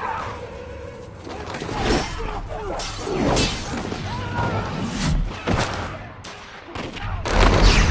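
Sword-fight sound effects: blades swishing and slashing, cloaks whipping, and hits and thuds in quick succession, with a few short cries. A loud crash comes near the end.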